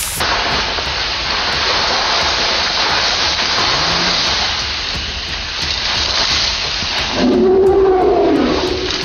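An elephant in forest undergrowth, with a steady loud rushing, rustling noise of brush and dust. About seven seconds in comes a loud, wavering pitched call lasting just over a second.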